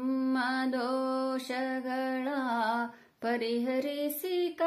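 A solo voice singing a Kannada devotional song to Goddess Sharada in long, held, melismatic notes, with no instruments heard. The singing breaks off briefly for a breath about three seconds in.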